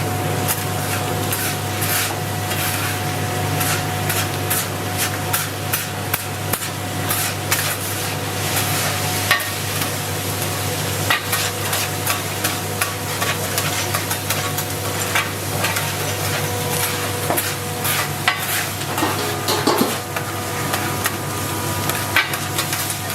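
Food frying in a pan with a steady sizzle, while a metal utensil stirs and strikes the pan in many irregular clicks and scrapes. A low, steady hum runs underneath.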